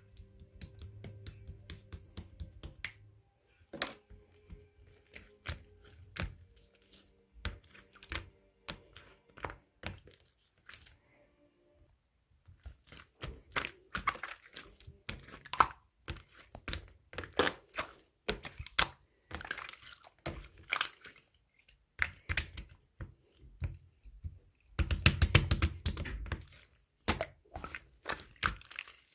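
Clear slime being squeezed and pressed by hand, making quick, irregular sticky clicks and pops as trapped air bursts, with a dense run of pops a few seconds before the end.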